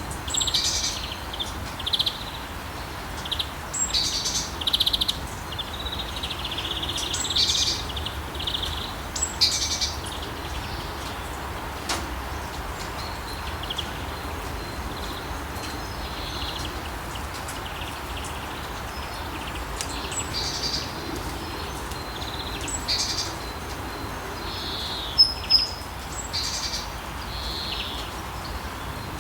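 Steady rain falling, with songbirds chirping and singing over it. The calls come thick and fast in the first ten seconds or so, thin out after that, and end with a few sharp, loud chirps near the end.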